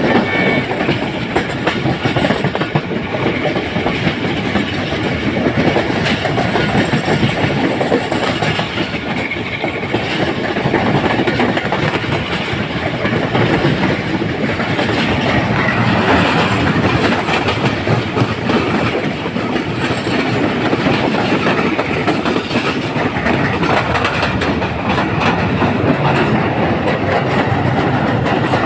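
Pakistan Railways ZCU-30 GE diesel-electric locomotive chugging steadily as it hauls a passenger train, with the coaches' wheels running over the rails in a continuous clatter.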